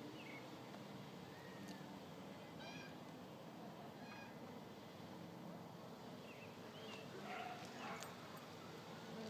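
Faint meowing calls from cats mating, a female cat in heat with a tom: a few short calls about three and four seconds in, and more near the end.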